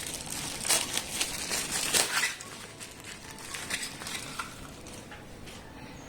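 Miniature metal storage pots being handled and unwrapped: light clinks and knocks with packaging rustle, the sharpest clicks about a second and two seconds in, then quieter handling.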